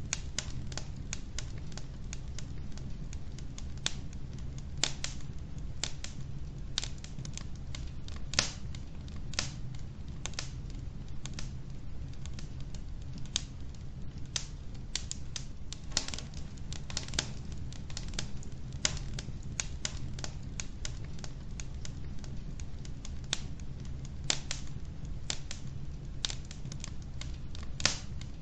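Wood logs burning in a fireplace: irregular crackles and sharp pops, a few of them louder, over a low steady rumble.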